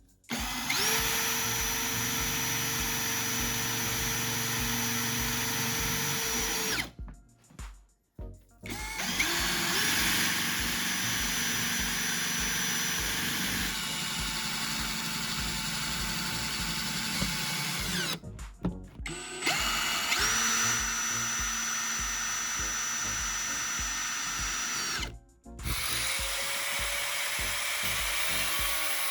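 Electric power tool motor spinning up and running steadily in long runs of several seconds, stopping briefly three times between them.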